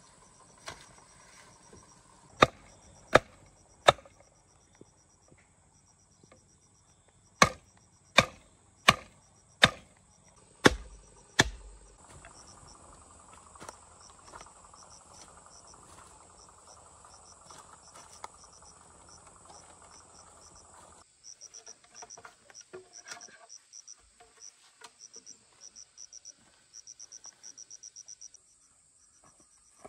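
Two runs of sharp knocks, three and then six, roughly one every three-quarters of a second, the blows of hand work on wood or bamboo. Insects chirp steadily underneath in fast, high pulses, more plainly in the second half.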